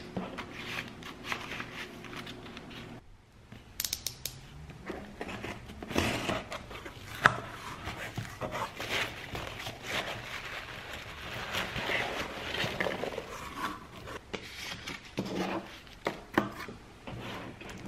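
Paper and cardboard packaging being handled, rustling and scraping irregularly: first a plastic sticker sheet slid into a kraft envelope, then, after a brief pause about three seconds in, a cardboard box's flaps pulled open and the packing fill inside rustled.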